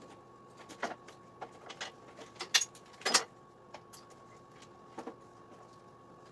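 Irregular clicks and knocks, about a dozen, of small parts and wiring connectors being handled on a moped, loudest around two and a half to three seconds in, over a faint steady electrical hum.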